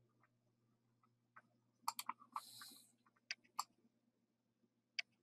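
Quiet computer mouse clicks: a quick run of three about two seconds in, two more a little later, and a single click near the end, with a brief soft hiss between them.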